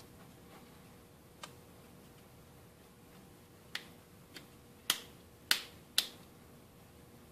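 Rocker power switch of a Ryobi 1600 electric pressure washer, out of its housing, being flicked by hand: six sharp plastic clicks, the last three the loudest and about half a second apart.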